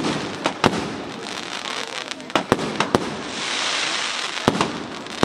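Fireworks display: sharp bangs of bursting shells, several in quick succession a little past two seconds in, with a hiss of crackling effects swelling and fading between them.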